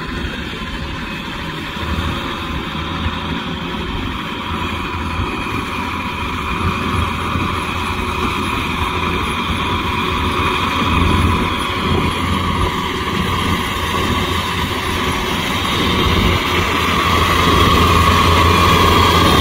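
Kubota M6040SU tractor's diesel engine running steadily under load as it drives a rotavator through wet mud. It grows louder near the end as the tractor comes close.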